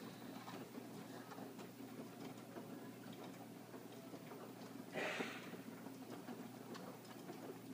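LG front-load washing machine running: a low steady hum with faint soft ticks as the drum turns. A short hiss about five seconds in.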